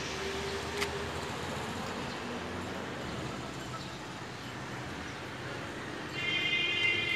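Steady outdoor town ambience with distant road traffic, heard as an even hiss. There is a single click about a second in and a short high-pitched tone near the end.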